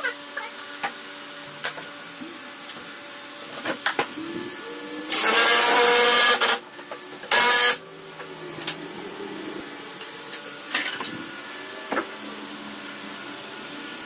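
Cordless Ryobi impact driver running in two bursts, one about a second and a half long about five seconds in and a short one about a second later, tightening lag bolts up into the bottoms of wooden posts. Scattered light knocks of wood and tools being handled come before and after.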